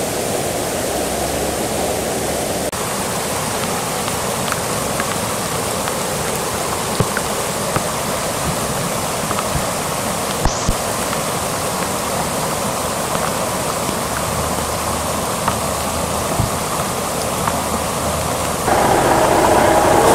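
Floodwater rushing steadily across a paved road. Near the end, the sound gets louder and a steady hum joins in.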